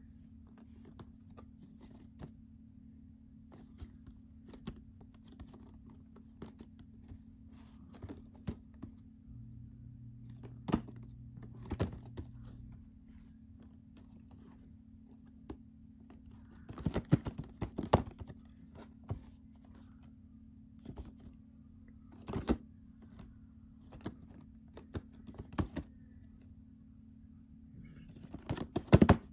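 Scattered clicks, taps and knocks of a boxed prize figure and its packaging being handled and opened, with bursts of quick knocks about seventeen seconds in and near the end, over a steady low hum.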